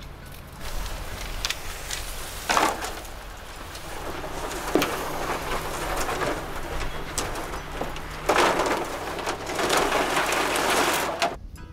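Long strips of split green bamboo rustling, scraping and clattering against each other and the van's floor as they are pulled in and coiled, with sharp clicks scattered through. The noise is loudest in a long stretch near the end and stops abruptly just before the end.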